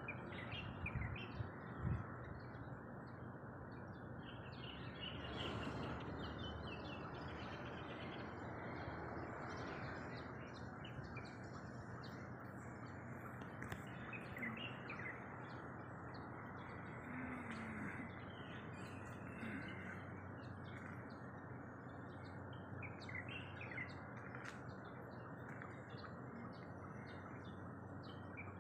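Small birds chirping now and then over a steady, even background noise.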